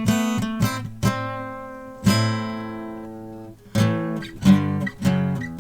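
Acoustic guitar being played with a pick: quick picked notes and strums, then about two seconds in a full chord is struck and left to ring out for over a second before the strumming starts again.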